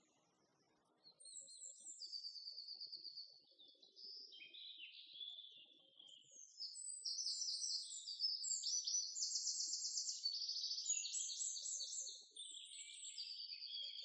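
Several songbirds singing at once, their rapid high trills and chirp series overlapping, starting about a second in.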